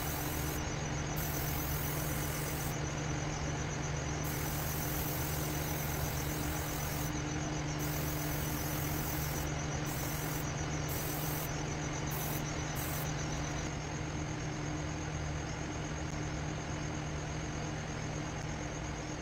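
Aerosol spray paint can hissing in repeated bursts, some under a second and some a few seconds long, stopping a little over two-thirds of the way through. A steady low machine hum runs underneath.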